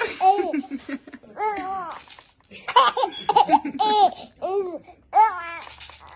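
Baby laughing in a string of short, high-pitched bursts, each rising and then falling in pitch, with brief pauses between them.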